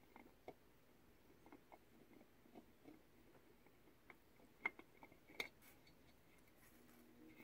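Faint, scattered small clicks and taps of the vacuum motor's armature shaft and washer being handled and fitted in the metal motor housing, the two sharpest clicks about four and a half and five and a half seconds in.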